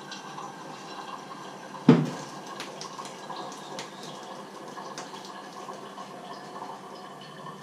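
A ceramic teapot set down on a glass-ceramic hob with one sharp knock about two seconds in. Around it, a faint steady hiss with small clicks and light clatter of kitchenware.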